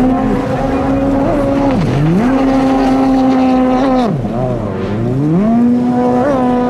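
Stand-up jet ski engine revving hard through buoy turns. It holds a high steady pitch, drops off sharply about two seconds in and again about four seconds in as the throttle is let off for a turn, then climbs back up. A hiss of spray lies under it.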